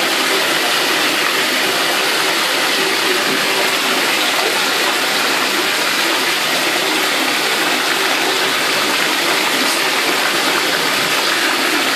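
Water gushing steadily from a bathtub tap into the tub, an even unbroken rush.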